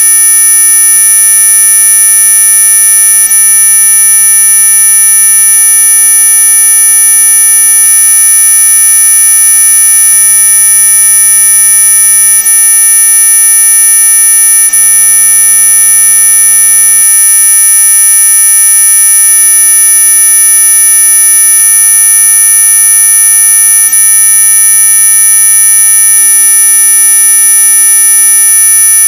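Synthetic anti-mosquito repellent tone: a loud, steady electronic whine made of several pitches sounding together, the highest ones strongest, holding without change like a buzzer.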